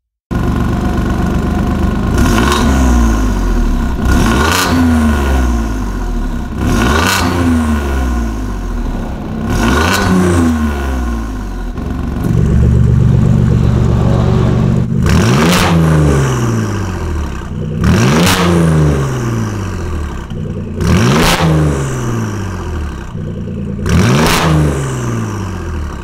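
Alfa Romeo Giulia Quadrifoglio's twin-turbo V6, breathing through a full decat Akrapovic titanium exhaust, revved hard while stationary. It gives about eight sharp throttle blips every two to three seconds, each dropping back to idle, with one longer held rev near the middle.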